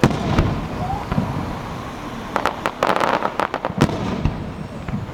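Aerial fireworks shells bursting: a sharp boom right at the start, then a rapid cluster of crackling reports around the middle, and another boom near the end.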